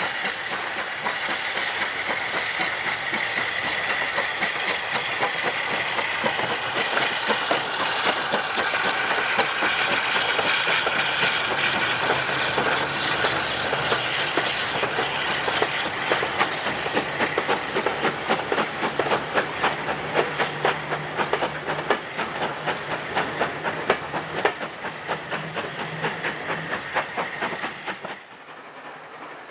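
Southern Railway Q class 0-6-0 steam locomotive No. 30541 passing with a steady hiss of steam, followed by the rapid clicking of carriage wheels over the rail joints as the train goes by. The sound drops sharply near the end.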